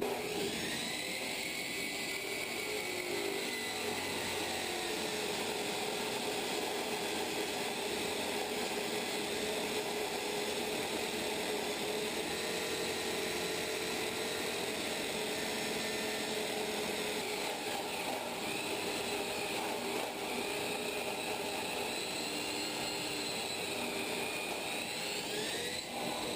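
A power tool running continuously, with a high whine that dips and rises in pitch as it works, typical of metal being cut or ground when brackets are fabricated.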